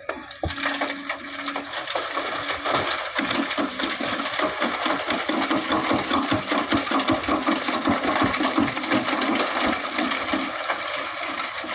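Sand and stones pouring from an excavator bucket into a dump truck's bed, a dense rattling clatter that starts suddenly, over a low machine engine hum.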